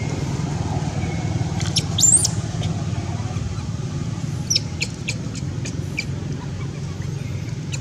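Short, high-pitched animal chirps: a few about two seconds in, including one quick rising squeal, then a quick run of about six more a couple of seconds later. A steady low hum continues underneath.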